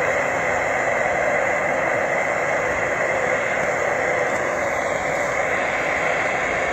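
Propane torch of an oxalic acid vaporizer burning with a steady, even hiss. It is heating a 4-gram dose of oxalic acid in the stainless burn chamber to vaporize it into a beehive.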